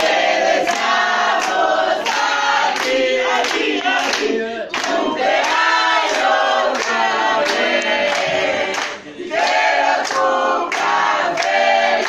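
A group of voices singing loudly together, with sharp strikes keeping a steady beat throughout.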